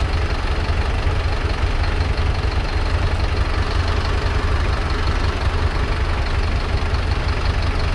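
Suzuki motorcycle engine idling steadily at a standstill, a low, even rumble.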